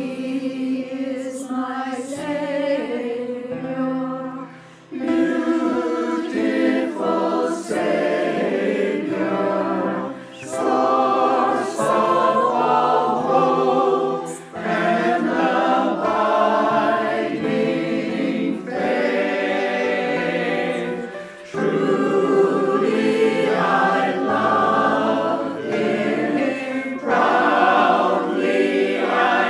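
Mixed-voice virtual choir, men and women recorded separately and mixed together, singing a hymn in sustained phrases with short breaks for breath, accompanied by piano.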